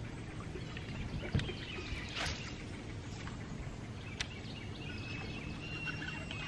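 Outdoor lake ambience: birds chirping over a steady low background hum, with a short swish about two seconds in and a couple of sharp clicks.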